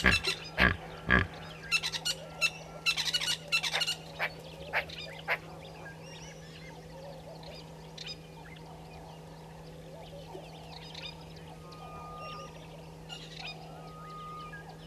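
Egyptian goose honking: a rapid series of loud, harsh calls over the first five seconds or so, then only faint, scattered bird calls.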